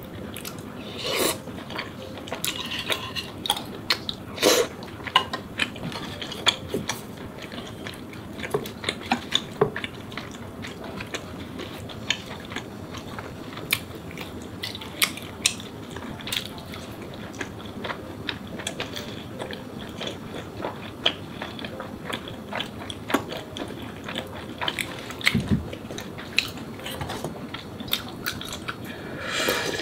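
Close-miked eating: chewing tteokbokki rice cakes, with many small wet mouth clicks and chopstick taps. Near the end comes a slurp of oyster ramen broth drunk from the pot.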